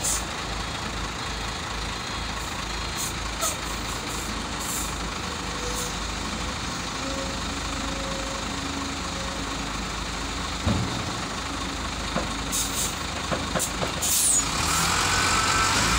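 Heavy tipper truck's diesel engine running steadily with the dump bed raised. There is a single knock about eleven seconds in, and near the end the sound grows louder with a rising whine.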